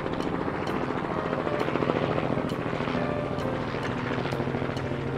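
Propeller aircraft engine running steadily, with a fast, even chopping pulse and no change in level.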